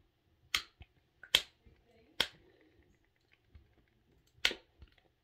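Sharp plastic snaps and clicks from toy packaging being pried and pulled at as it resists opening: three in quick succession about a second apart, then a fourth after a pause of about two seconds.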